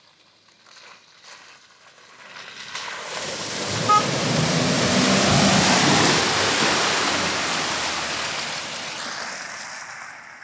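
Jeep Wrangler driving through a mud puddle and passing close by: engine and tyre noise with a rush of splashing mud and water that builds as it approaches, is loudest about five to six seconds in, and fades as it drives away. A brief beep sounds about four seconds in.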